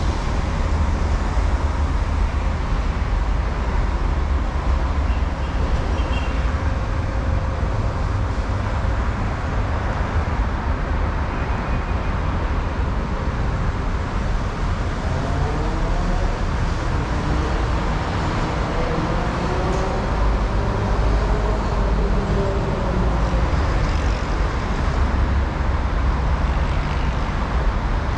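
Steady low rumble of heavy road traffic, with a faint whine that rises and falls in pitch about halfway through.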